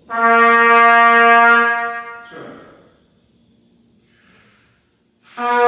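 Trumpet holding one steady note for about two seconds, started with a 'D' tongue attack, followed by a short breath. A second note at the same pitch starts near the end.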